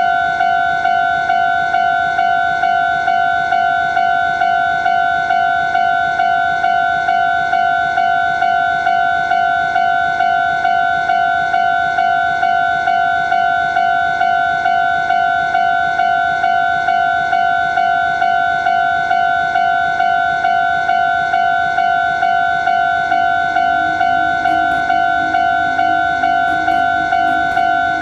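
Japanese level-crossing alarm dinging over and over at an even, quick pace on one high pitch. A lower steady tone joins for a few seconds near the end.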